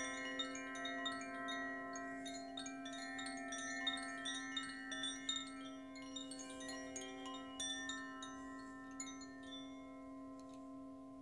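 Metal wind chimes ringing, a dense scatter of bright, overlapping strikes that thin out and stop about nine seconds in. Beneath them a steady low ringing tone holds throughout, and it is left ringing alone at the end.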